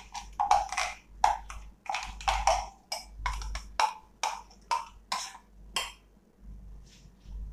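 A metal spoon knocking and scraping inside a stainless-steel mixer-grinder jar while ground dal batter is scooped out, about three sharp knocks a second, stopping about six seconds in.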